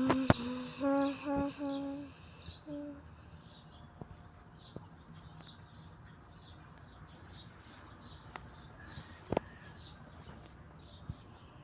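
A short run of about five pitched notes in the first three seconds, then faint, high bird-like chirps repeating about twice a second.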